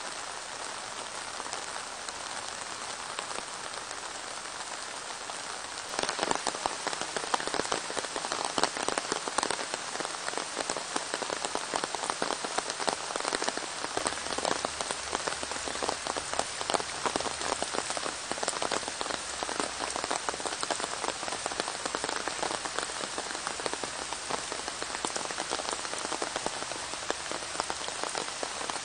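Rain falling: a steady hiss at first. About six seconds in it becomes louder and closer, thick with the splashes of drops landing in puddles of rainwater runoff.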